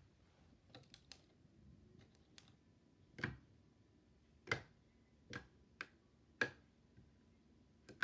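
A light switch flicked on and off repeatedly: a series of sharp clicks at uneven spacing, about one a second. The light it works does not come on.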